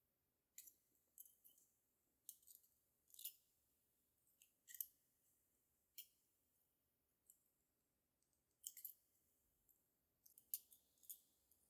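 Faint, irregular small clicks and ticks of jewelry-making work with brass wire, gemstone chips and hand tools, some coming in quick clusters of two or three.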